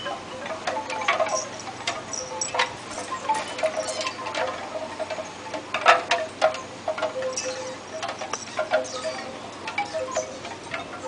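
Light metallic chiming and tinkling, irregular, with scattered sharp clicks; the loudest click comes about six seconds in.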